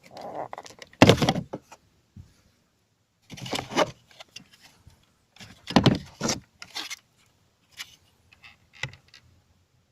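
Handling noise from work on a car's inside door panel as its screws are taken out: three loud clattering, rustling bursts a couple of seconds apart, with small clicks between them.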